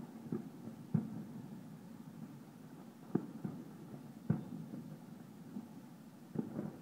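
Distant fireworks bursting in the air: five dull, muffled bangs, spaced one to two seconds apart, with the last two close together near the end.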